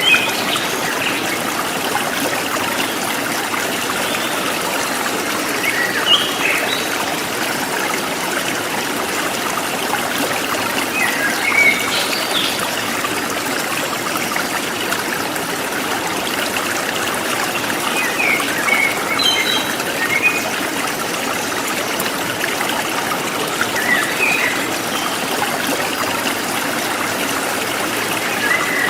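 A forest stream trickling steadily, with a bird giving short high chirps every five or six seconds.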